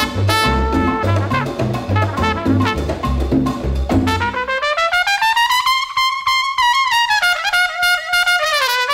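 Background music: brass playing over a rhythmic bass and drums. The bass and drums drop out about halfway, leaving a single brass line holding long notes that rise and then fall.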